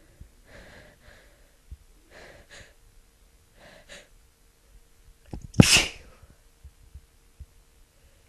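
A woman with a head cold sneezes once, loud and sudden, about two-thirds of the way through. It follows a few short, faint, catching breaths as the sneeze builds.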